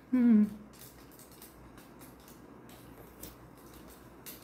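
A man humming a short note that slides down in pitch and stops about half a second in, then quiet room tone with a few faint clicks.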